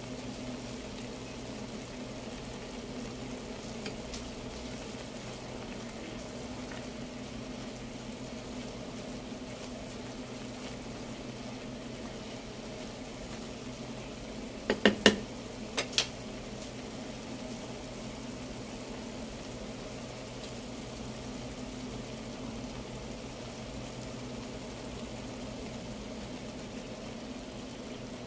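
Steady low hum over a faint simmer of taro leaves in a pot. About halfway through, a wooden spoon stirs the leaves and knocks against the pot about five times in quick succession.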